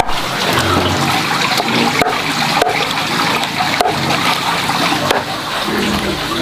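Water running and splashing steadily, with a few sharp clicks.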